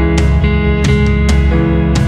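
Background music with sustained chords and a steady beat.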